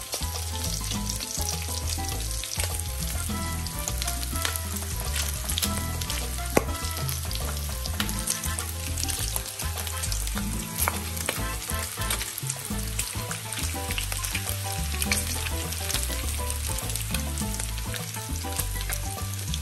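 Bacon strips frying in a hot grill pan, sizzling steadily with scattered crackles and pops of spitting fat.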